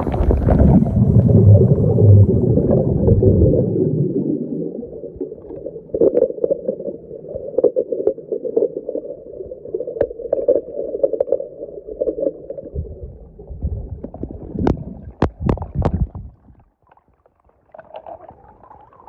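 Muffled underwater rumble and gurgling of swimming-pool water picked up by a submerged camera, loudest in the first few seconds, with a few sharp clicks about fifteen seconds in.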